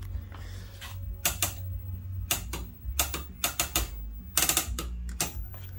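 A run of sharp, irregularly spaced mechanical clicks, some in quick pairs and triples, over a steady low hum.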